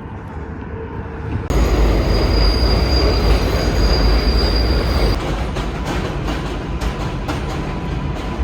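Train running on rails: a loud deep rumble that starts abruptly about a second and a half in, with a steady high-pitched wheel squeal for a few seconds, then rumbling on with rapid clicking and clattering.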